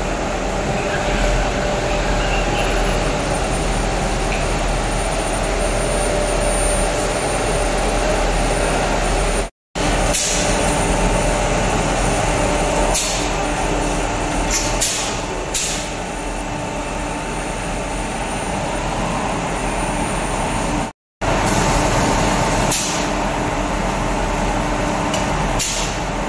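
Vertical insulating-glass production line running: steady, loud machine noise from its conveyor and drives, with several short sharp hisses like pneumatic air releases.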